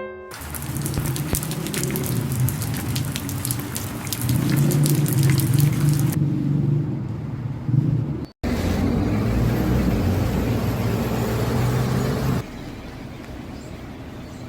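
Rain and car traffic on a wet street: a steady rush of rain with dripping clicks and the low hum of passing cars. The sound changes abruptly a few times and drops quieter about two seconds before the end.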